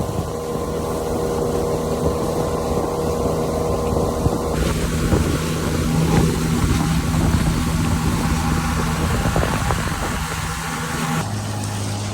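Boat engine running steadily under way, with the rush of wind and water over it. Its tone shifts abruptly twice, about four and a half seconds in and again near the end.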